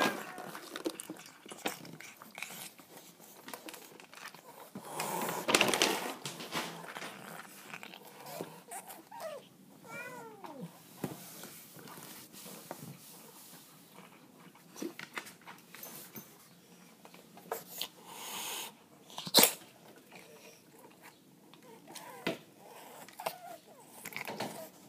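Feral cats at a feeding dish: a cat meows a few times about ten seconds in and again near the end, amid scattered small knocks and rustles, with a sharp click about nineteen seconds in.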